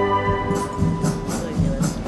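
Massed wind band: a held chord cuts off shortly after the start, and a rhythmic passage of drums and bright high percussion strikes, about four a second, takes over.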